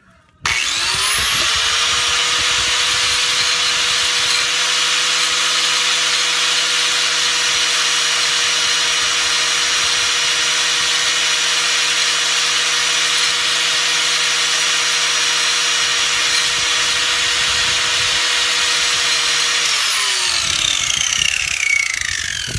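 Electric angle grinder switched on, spinning up to speed, running steadily for about nineteen seconds, then switched off and winding down near the end.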